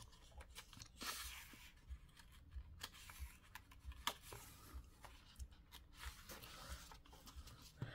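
Faint handling of a hardcover picture book: small clicks and light paper rustling as hands touch the pages, with a page turned over about six seconds in.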